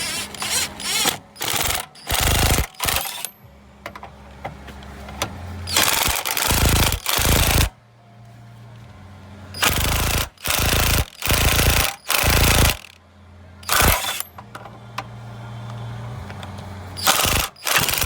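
Ingersoll Rand 20V cordless impact wrench hammering in repeated bursts, about a dozen of them with pauses between. It is driving a scissor jack wedged against a wheel that is rusted fast to its hub, to force the wheel off.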